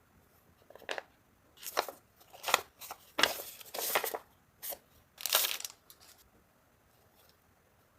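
Plastic packaging being crinkled and torn by hand: a run of short rustling, tearing bursts that starts about a second in and stops about two seconds before the end.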